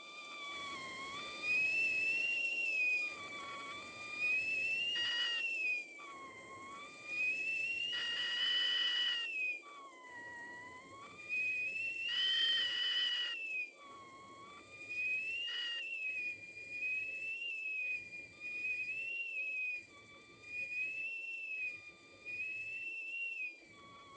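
Kettle whistling at the boil, steam forced through the spout whistle. The tone is shrill and wavers slowly up and down in pitch, with a lower second note that comes and goes, and the whistle swells and fades every second or two.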